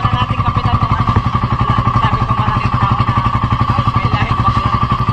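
A small fishing boat's engine running steadily under way: a fast, even chugging with a steady whine above it.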